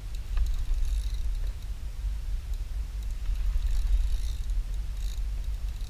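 Wind buffeting the camera's microphone on a kayak at sea, a steady low rumble, with short faint bursts of high hiss every second or two.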